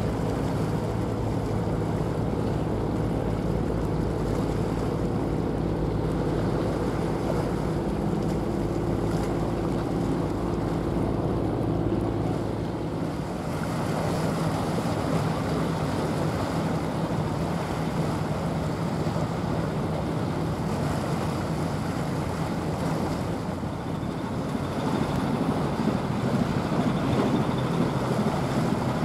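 Passing general cargo ship's diesel engine humming low and steady, over water rushing along the hull and wind on the microphone; the deepest rumble drops away about halfway through.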